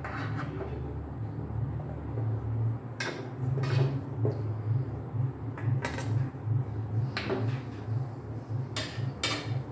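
Serving spoon clinking against the pressure cooker and a plate as cooked chicken is lifted out: about six sharp clinks, scattered from about three seconds in, over a steady low hum.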